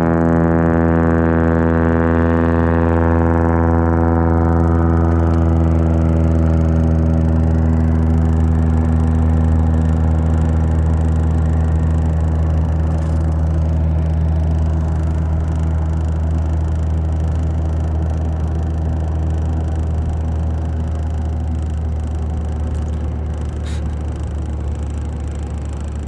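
Floatplane's propeller engine at full power on its takeoff run: a steady drone with many overtones. The higher overtones die away over the first few seconds, and the sound slowly grows quieter as the plane pulls away.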